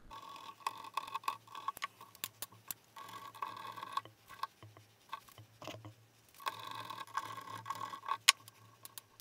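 Light, irregular clicks and taps of a screwdriver and small metal parts as the steel scope-ring cap screws are worked loose. A faint steady whine runs underneath, dropping out in the middle and stopping near the end.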